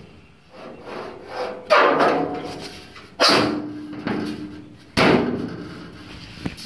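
Loose steel reproduction quarter panel being pushed and flexed into place by hand during a dry fit: three sharp thumps, each ringing on for about a second as the sheet metal vibrates.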